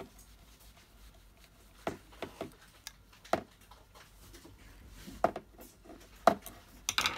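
Sharp clicks and taps of small plastic and metal parts being handled: an airsoft MP5's plastic hop-up chamber being worked onto its brass inner barrel. There are about seven separate clicks at irregular intervals, the loudest about six seconds in, with a quick cluster near the end.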